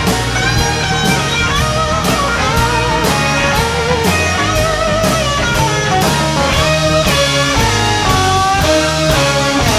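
Instrumental blues-rock music: an electric guitar lead with bent notes over bass and drums keeping a steady beat.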